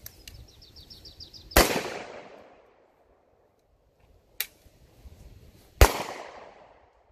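Two gunshots about four seconds apart, each followed by about a second of echo. The first is from an AR-style carbine; the second is a pistol shot after the transition from carbine to pistol. A single short, sharp click comes between them.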